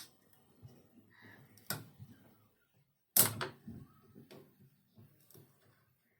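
Sharp clicks and knocks from working the plastic diffuser dome off an LED bulb, over soft handling rustle. The loudest crack comes about three seconds in, with lighter clicks before and after it.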